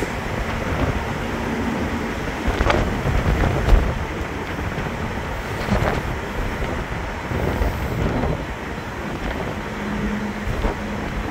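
Wind buffeting the microphone over a low, steady rumble of ferry machinery, with a few heavier gusts a few seconds in and a faint steady hum near the end.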